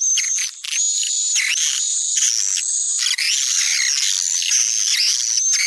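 Swiftlet lure call recording: a dense, unbroken twittering of overlapping high chirps and short gliding whistles, the calling sound played to draw swiftlets into a swiftlet house.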